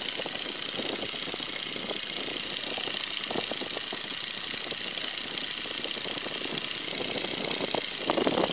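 Boeing N2S-3 Stearman biplane in climbing flight: its seven-cylinder Continental R-670 radial engine and propeller running steadily at about 1800 RPM. It grows briefly louder near the end.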